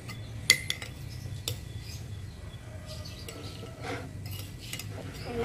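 Metal spoon scraping and clinking against an amber glass bowl while rice and fried egg are stirred and scooped. A sharp clink about half a second in is the loudest, with a few lighter clinks after it and again near the end.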